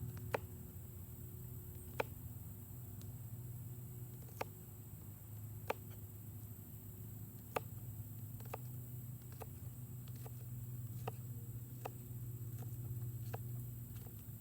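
Condor Terrasaur knife chopping food, each cut ending in a single sharp knock. The knocks come every second or two at first and closer together in the second half.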